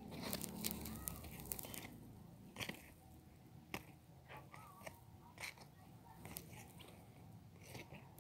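Faint handling noise: soft rustling with a busier cluster of clicks in the first two seconds, then single sharp clicks about every second.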